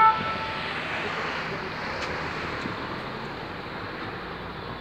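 A fire engine's two-tone siren cuts off right at the start, leaving a steady rushing noise that slowly fades.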